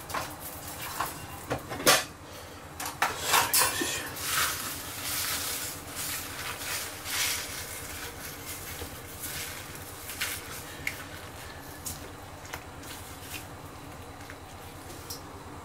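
Wooden chopsticks knocking and clicking against a metal pot as spinach is pushed down into boiling water, the sharpest knocks about two seconds and three to four seconds in, followed by softer splashing and stirring in the water and a few lighter taps.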